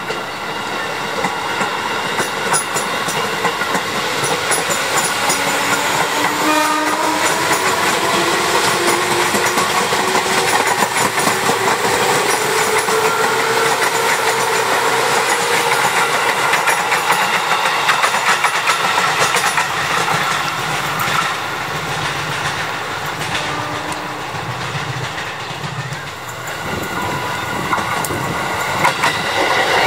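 Ex-JR 205-series KRL electric commuter train passing close by: a steady rolling rumble with clacking over the rail joints, and a motor whine that rises in pitch over several seconds as the train picks up speed.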